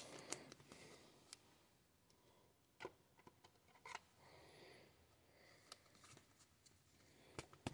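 Faint handling sounds of a trading card being slid into a plastic sleeve and a rigid plastic top loader: soft rustling with a few light, scattered clicks.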